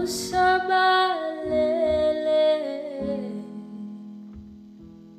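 Background music: a song with a singing voice holding long notes, fading out over the last couple of seconds.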